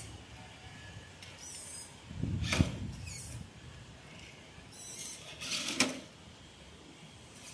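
Traxxas TRX-4 RC crawler climbing over rock: short spells of electric motor and gear whir that rise and fall with the throttle, with a sharp knock about two and a half seconds in and a clatter near six seconds as the truck tips onto its side against the stone.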